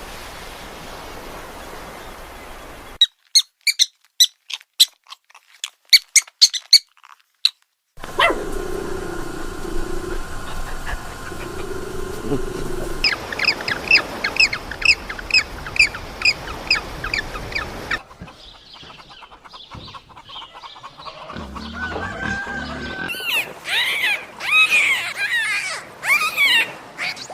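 A string of short animal-call recordings cut one after another. A few seconds in come sharp squeaks with silent gaps. Later there is a run of evenly repeated high chirps, then rising-and-falling calls near the end.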